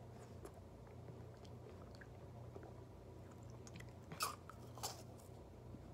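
Quiet mouth sounds of someone eating an orange ice pop, with small wet clicks and two louder noisy mouth sounds, one a little after four seconds and one near five seconds, over a faint steady hum.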